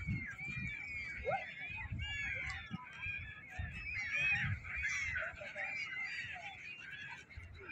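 A large flock of gulls calling together, many short overlapping calls.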